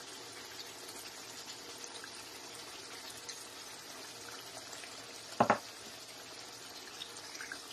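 Chicken liver gravy bubbling and sizzling faintly in a pan, with a brief loud double tap about five and a half seconds in.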